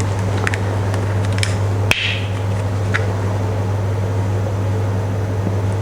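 A steady low hum runs throughout, with a few light clicks of kitchen handling and one sharper click and short scrape about two seconds in.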